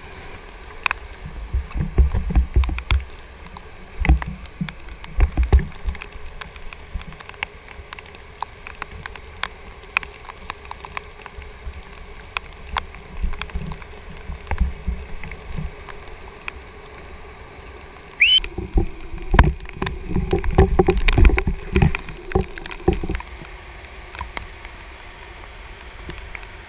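Whitewater rapids rushing, with splashes and knocks close to the camera's microphone and low thuds of water against it, busier for a few seconds past the middle. A brief rising whistle-like note sounds just before that busier stretch.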